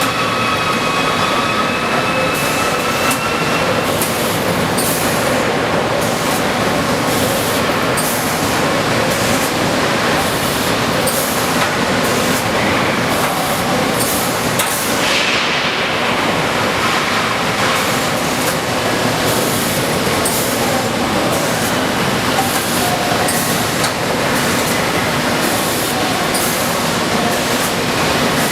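Loud, steady industrial machinery noise with many short hisses cutting through it, and a faint whine that fades out in the first few seconds.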